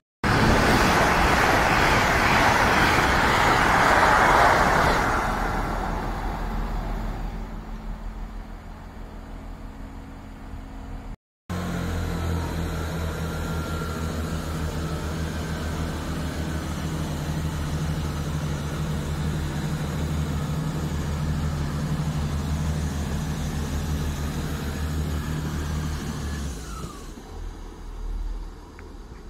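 A GWR Hitachi Intercity Express Train passes at speed, a loud rushing noise that fades away over several seconds. After a cut, a GWR Networker Turbo diesel multiple unit's engine runs with a steady low hum, which drops away near the end.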